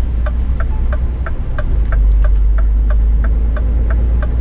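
Turn-signal indicator ticking evenly, about three ticks a second, over the low drone of a Scania S500 truck's diesel engine heard inside the cab. The engine drone grows louder about two seconds in.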